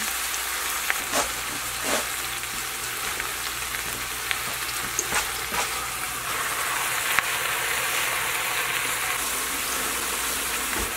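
Steady sizzling hiss of leeks and carrots in hot melted butter in a stainless steel pot. A few light knocks come as a whole trussed chicken is set in on top, with a faint low hum under it that stops near the end.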